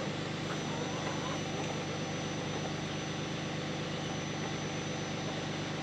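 An engine idling steadily with an even, unchanging hum.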